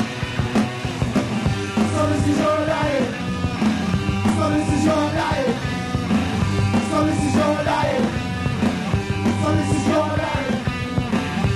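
Punk rock band playing live, with electric guitar and drums under a man singing into a microphone.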